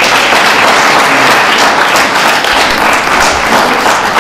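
Audience applauding, a dense, even clapping that holds steady throughout.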